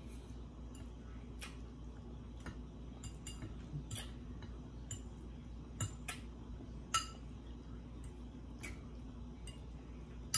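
Metal fork clinking and scraping against glass serving bowls: a string of irregular light clinks, the loudest two about six and seven seconds in.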